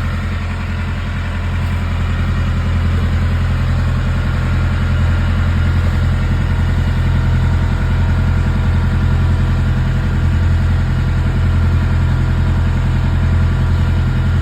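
Fishing boat's engine running steadily with a deep, even hum.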